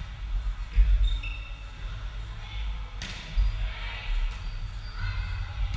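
A volleyball struck once, a sharp smack about three seconds in that rings on in the gym's echo, over a low rumble of players moving on the court.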